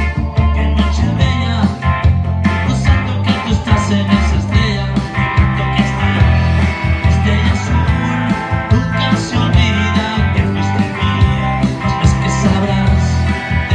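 A Stratocaster-style electric guitar playing an instrumental passage over a backing track with steady bass notes and a drum beat.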